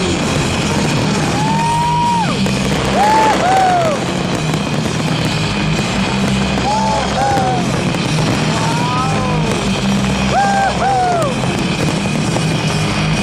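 Loud music playing over a crowd, with short rising-and-falling cries from voices over the top.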